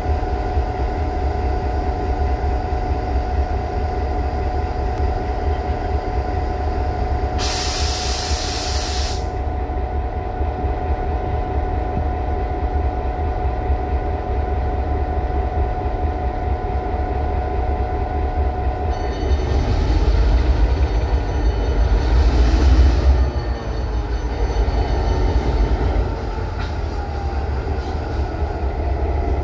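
Train rumbling steadily, with a brief loud hiss about eight seconds in; from about twenty seconds in the sound grows louder and shifts in pitch for a few seconds.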